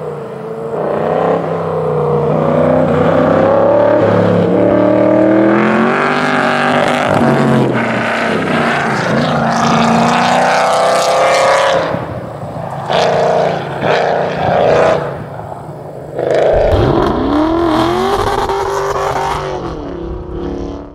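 2008 Mustang GT's 4.6 L V8 revving up and down as it drives hard through an autocross cone course, its pitch rising and falling with each run between cones. Near the end a deep swooping sound comes in.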